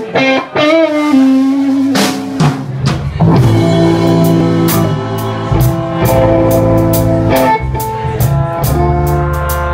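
Live blues band. An electric guitar plays a lead line alone with bent notes. Drums come in about two seconds in, and about a second later the full band joins, with bass, keyboards and a two-trumpet-and-trombone brass section holding chords over a steady beat.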